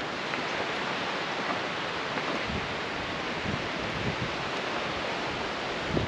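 Steady rushing noise with wind buffeting the microphone, the low buffets coming and going from about halfway through.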